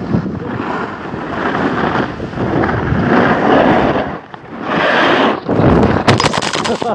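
Wind rushing and buffeting over a phone's microphone during a ride down a snowy slope, surging and easing in gusts. Near the end comes a quick run of sharp clicks and knocks as the phone is jostled.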